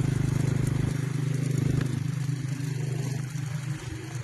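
A small engine running with a fast, even pulse, fading away near the end.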